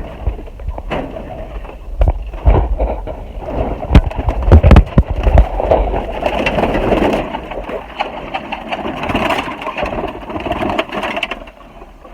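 Pigeons cooing, with knocks, thumps and rustling from handling close to the microphone; the heaviest thumps come about four to five seconds in.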